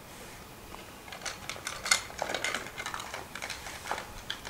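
A quick, irregular run of faint light clicks and rustles, starting about a second in and going on for about three seconds, with one sharper click near two seconds in.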